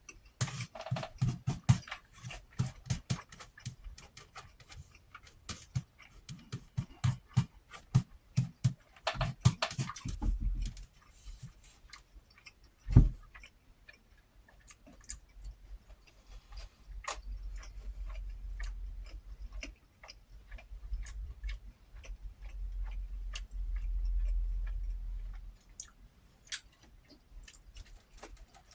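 Close-miked chewing of a mouthful of fried fish, egg and rice: rapid wet mouth clicks and smacks for about the first ten seconds, then a single sharp knock, then slower chewing over a low rumble.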